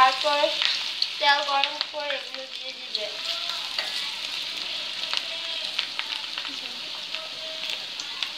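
Potato fries deep-frying in hot oil in a metal pan, a steady crackling sizzle with many small pops as a spatula stirs them. Two brief squealing tones stand out above the sizzle in the first two seconds.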